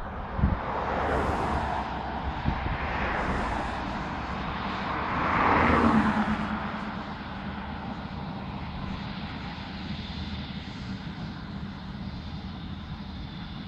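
Distant airliner's jet engines running with a steady hum and a thin high whine, while cars pass close by on the road. The loudest pass, about five to six seconds in, swells and drops in pitch as it goes by.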